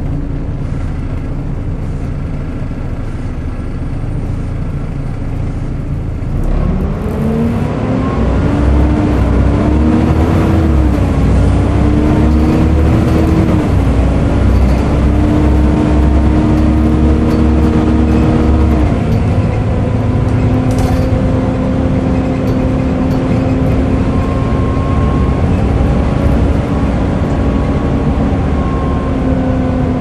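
Volvo B7TL double-decker bus under way, heard from the upper deck: its engine and the vacuum-cleaner-like 'hoover' whine of its cooling fan. The whine rises steeply about six seconds in, then holds steady, shifting pitch a few times and dropping once about two-thirds of the way through.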